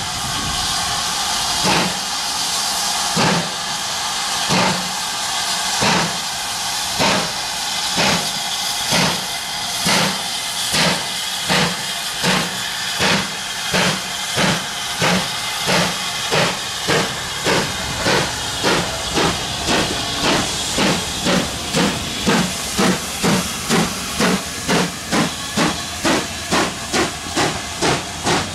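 GWR 'Saint' class 4-6-0 No. 2999 'Lady of Legend', a two-cylinder steam locomotive, pulling away under load over a steady hiss of steam. Its exhaust beats speed up from about one every second and a half to about two a second as the train gathers speed.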